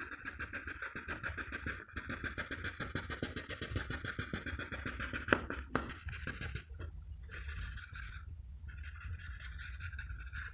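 Pencil scratching rapidly back and forth on paper in runs of shading strokes, pausing briefly a few times, with a couple of sharp ticks about halfway through. A low steady hum lies underneath.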